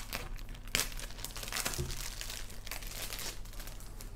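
Thin clear plastic bag crinkling and tearing as it is picked open and pulled off a small plastic slime tub, with a soft thud about two seconds in. The crinkling dies down near the end.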